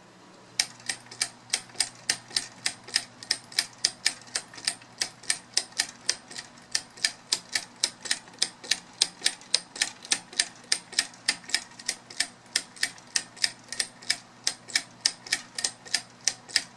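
Clockwork mechanism of a vintage Japanese wind-up toy dog in a rocking basket, clicking steadily at about three to four clicks a second, with a faint hum beneath.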